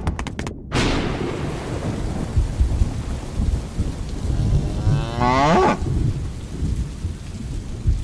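Steady rain with low thunder rumbling and a sudden thunderclap about a second in. A cow moos once about five seconds in.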